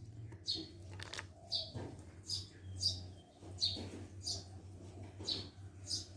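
A small bird calling with short, high chirps that each fall quickly in pitch, repeated about one and a half times a second, over a steady low hum.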